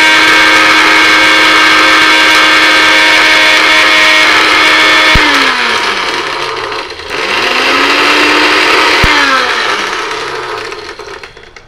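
Electric blender's motor running at high speed, grinding dry ingredients in its jar to a fine powder. About five seconds in it is switched off and spins down. It restarts a second and a half later with a rising whine, runs for two seconds, then is switched off again and winds down to a stop.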